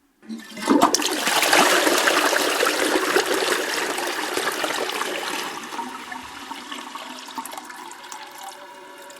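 A toilet flushing: a sudden rush of water about half a second in, loudest for the first few seconds, then dying away into a quieter running trickle as the bowl drains.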